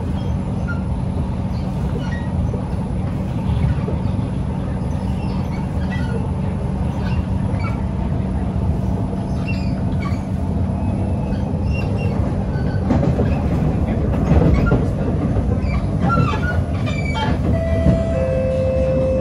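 Kawasaki Heavy Industries C151 MRT train heard from inside the carriage, running at speed: a steady rumble of wheels on rail with a steady hum. Scattered clicks and clatter over the track grow busier in the second half. Near the end two short steady tones sound, the second lower than the first.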